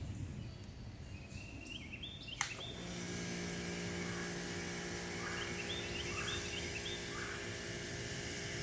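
An electric pressure washer starting: a sharp click about two and a half seconds in, then the motor runs with a steady hum under the hiss of the water spray. Birds chirp now and then.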